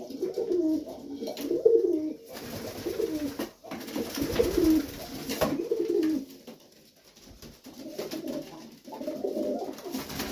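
Domestic pigeons cooing, repeated rolling coos one after another, with a quieter lull about two-thirds through.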